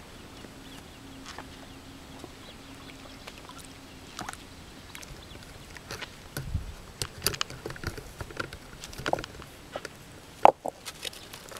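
Footsteps scrambling over loose shoreline rocks, with scattered clicks and knocks of stone on stone from about four seconds in and one sharp knock near the end. Before that, only a faint low steady hum.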